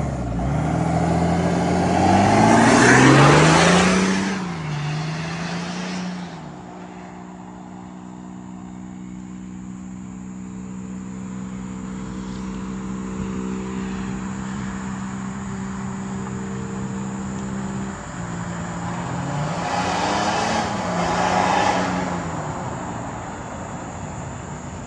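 Chevrolet Silverado's Duramax six-cylinder diesel, through a full stainless exhaust with diffuser, accelerating hard: the engine note rises sharply with a loud rushing noise to a peak about three seconds in, then settles into a steady drone. Around twenty seconds in it surges and falls back again.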